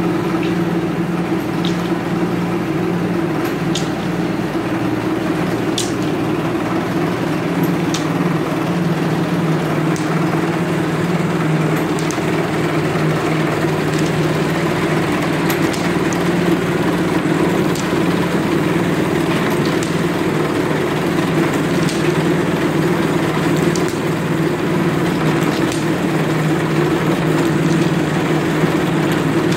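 Motor of a rattan pole sizing machine running steadily, with a faint click about every two seconds.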